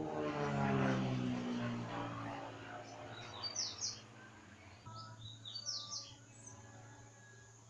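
A small aircraft flies past, its engine note falling in pitch as it goes by, loudest about a second in and then fading away. Birds chirp several times afterwards over a low steady hum.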